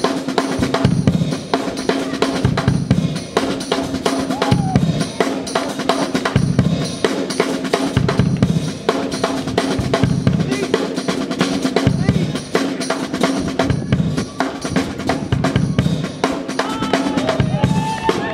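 Live drum kit and congas playing a steady beat, with kick, snare and hand-drum hits throughout.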